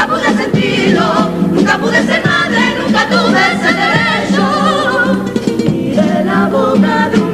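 Carnival comparsa choir of young women, its second voice reinforced by a few male voices, singing in harmony with strong vibrato, accompanied by two Spanish guitars.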